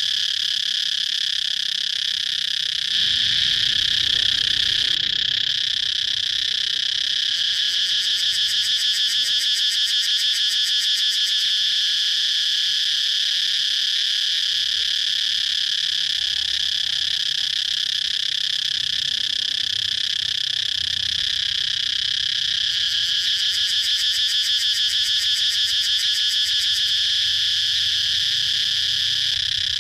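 Cicadas calling: a continuous, steady shrill buzz, with a rapid pulsing in it that grows stronger at times.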